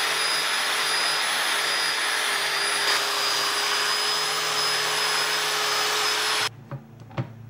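Hand-held orbital sander running against a steel go-kart frame tube, a steady loud whir with a high whine. It cuts off sharply about six and a half seconds in, followed by a couple of light metal knocks.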